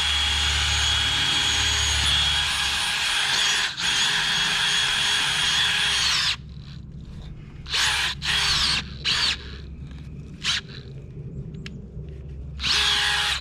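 Power drill boring a hole in the ground: about six seconds of continuous running with a steady whine, then five short trigger bursts as the hole is finished.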